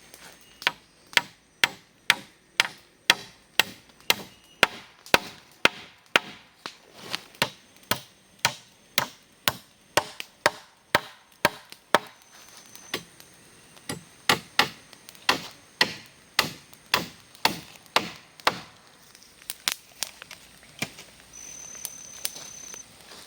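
Wood being chopped with a blade, sharp blows at a steady pace of about two a second, thinning to a few scattered strikes near the end.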